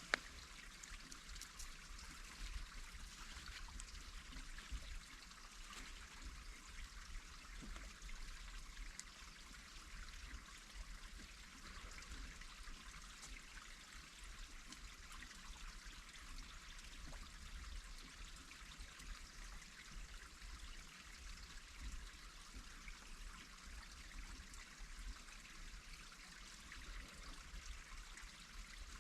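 Faint, steady rush of running water, with a single sharp click just after the start.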